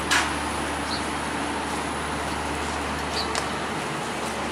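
Steady low hum of an idling diesel passenger train under the bustle of passengers boarding, with a sharp knock just after the start.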